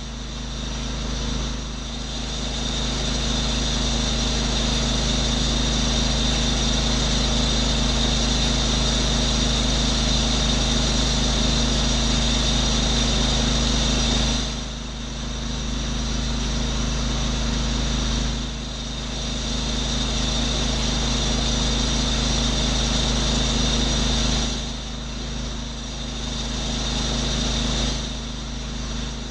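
A pressure-washer engine runs steadily under load, with the hiss of high-pressure water spraying from the wand. The spray drops off briefly four times in the second half, as the trigger is let go, while the engine keeps running.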